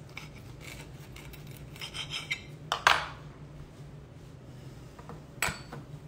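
Table knife sawing through toast with bacon and scraping on a ceramic plate, with a sharper scrape about three seconds in and another near the end.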